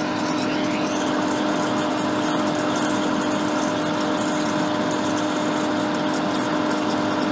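Hot air rework station blowing steadily: an even rushing hiss over a constant fan hum.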